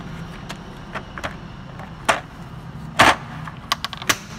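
A red plastic tap and die case being handled: a string of sharp plastic clacks and knocks as its lid is worked, the loudest about three seconds in, with smaller clicks from the metal taps and dies inside.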